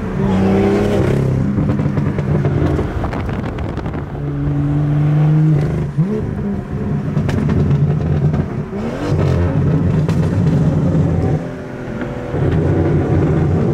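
BMW M2's turbocharged straight-six engine heard from inside the cabin under hard acceleration. The engine note holds and climbs, breaking off at the gear changes a few times.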